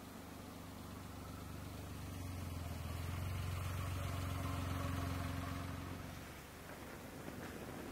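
A low engine hum that grows louder over a few seconds and then fades away, as of a motor going past.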